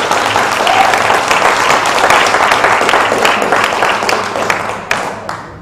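Audience applauding: a dense patter of many hands clapping that fades away near the end.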